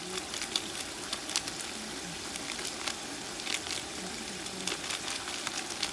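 Tomato and curry-powder mixture sizzling in a cooking pot over the heat, a steady hiss with scattered small crackles.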